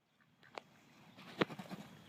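Two short, sharp clicks, about a second apart, the second one louder. Faint bird calls sound behind them.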